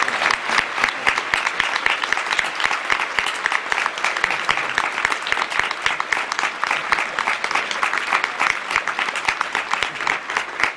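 Theatre audience applauding, a dense steady patter of many hands clapping that cuts off abruptly at the very end.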